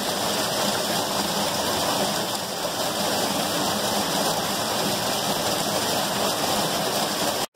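Small canyon waterfall pouring in a single narrow stream between boulders and splashing into a rock pool: steady rushing water. The fall is running low, with water coming down one side only.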